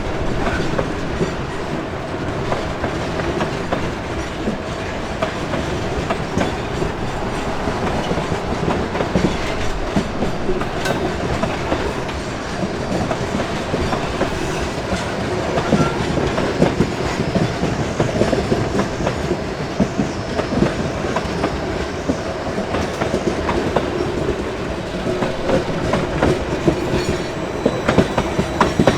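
Freight train wagons rolling past, a steady rumble with irregular clacking of steel wheels over the rail joints.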